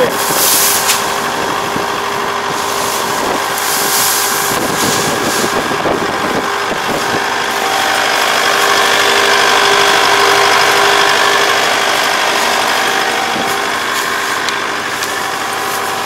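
Kubota ER470 combine harvester's diesel engine running steadily, a little louder in the middle. Brief crackly noises near the start and about four seconds in.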